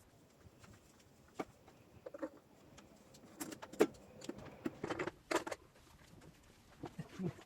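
Scattered light knocks and clicks, irregular, loudest about four and five seconds in.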